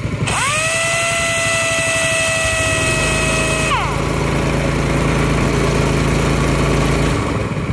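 An air impact wrench runs free for about three and a half seconds, a high whine that rises to speed with a loud air hiss and winds down when released, over a Honda GX160 single-cylinder engine driving a wheelbarrow compressor. About three seconds in, the engine speeds up as the compressor's throttle control responds to the air draw, then drops back to idle near the end. This shows the freshly cleaned check valve and throttle control working as they should.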